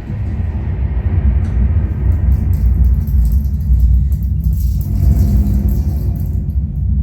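Zebronics Juke Bar 9700 Pro soundbar and subwoofer playing a film soundtrack at maximum volume: a deep, continuous bass rumble with scattered crackles over it.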